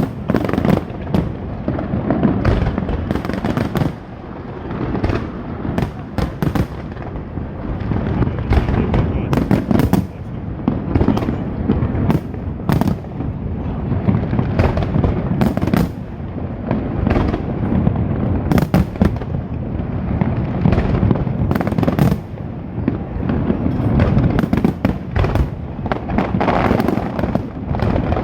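Fireworks display going off without a break: many sharp bangs and crackles in quick succession over a continuous low rumble of booms.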